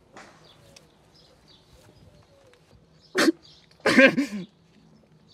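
A man's two wordless cries of distress: a short sharp one about three seconds in, then a longer wavering one just after.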